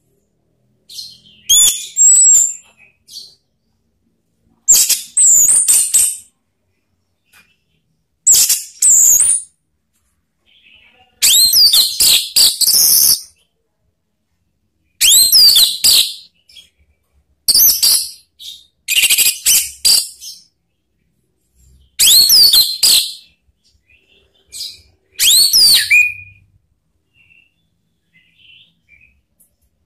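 Orange-headed thrush (anis merah) singing: loud, high, full song phrases of quick sweeping whistled notes, about nine phrases with short pauses between them, stopping a few seconds before the end.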